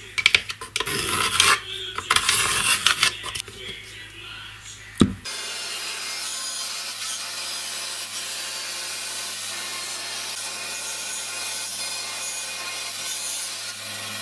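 Irregular rubbing and scraping strokes by hand inside an orange plastic pipe fitting, ending in a sharp knock about five seconds in. Then a benchtop band saw runs steadily, cutting plywood.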